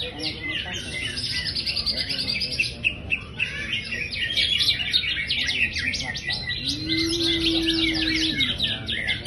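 A cucak hijau (green leafbird) singing a fast, continuous song of varied chirps, trills and mimicked phrases. A low held tone sounds for nearly two seconds about seven seconds in.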